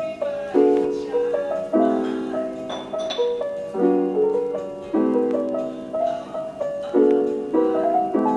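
Background piano music, a new chord struck about once a second, each ringing out and fading.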